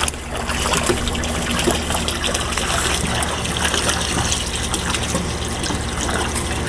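Steady rush of running water with fine splashing.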